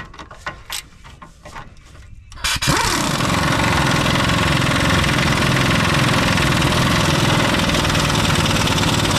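A few light metallic clicks, then about two and a half seconds in a motor spins up with a short rising note and runs loud and steady with a fast low chugging.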